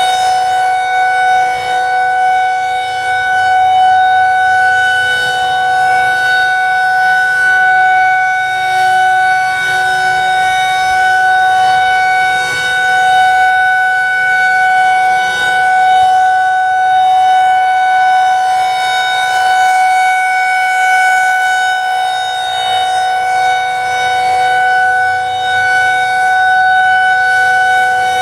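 Federal Signal 2001-SRNB outdoor warning siren sounding the Alert signal, a steady unwavering tone. Its loudness swells and fades slightly every few seconds.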